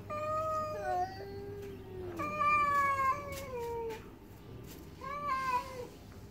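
Domestic cat yowling: two long, drawn-out calls that fall in pitch, then a shorter one about five seconds in, the low threatening yowl of an agitated cat after a fight.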